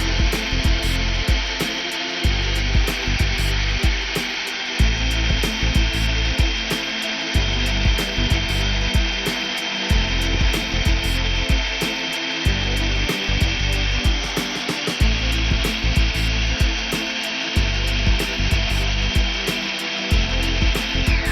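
Hair dryer with a replacement fan running steadily: a constant rush of air with a high whine, cut off suddenly at the very end. Background music with a steady beat plays throughout.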